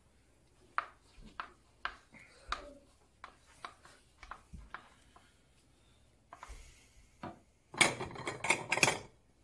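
Wooden spoon knocking against a ceramic bowl and a pan as cooked rice is scooped and pressed into the bowl: a string of separate sharp taps. About eight seconds in comes the loudest part, a quick burst of dishes clattering that lasts a second or so.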